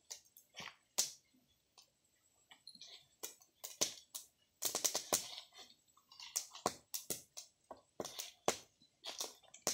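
Small open wood and dry-leaf fire crackling, with irregular sharp pops and snaps, thickest about four to five seconds in.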